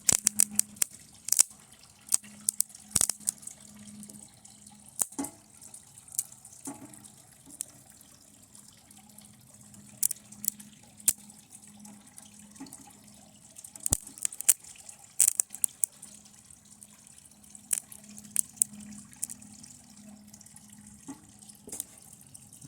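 Irregular sharp crackling snaps of sparks as lead-acid battery leads short across a TV circuit board's traces, burning them, over a faint steady low hum.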